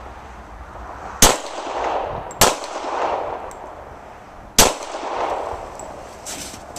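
Three shots from a Glock 22 pistol in .40 S&W, the first two about a second apart and the third about two seconds later, each followed by a short trailing echo.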